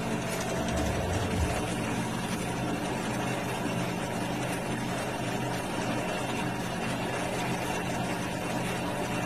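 Electric motor of a pillar drill press running with a steady, unchanging hum.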